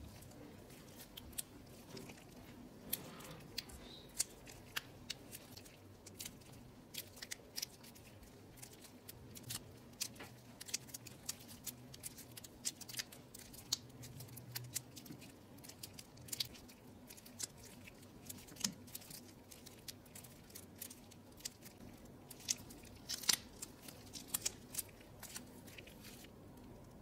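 Soft, sticky fondant being kneaded, folded and stretched by gloved hands: irregular small clicks and crackles as the paste pulls apart and presses back together, more frequent near the end.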